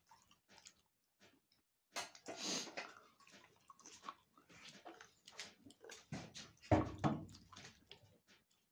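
Close-up eating sounds: wet chewing and lip smacks, with longer slurping noises about two seconds in and louder ones about six seconds in.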